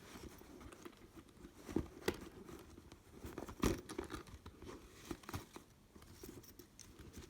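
Wrapping rustling and crinkling as a new handbag and its packed contents are handled, with a few sharper clicks and knocks, the loudest about two seconds in and again about three and a half seconds in.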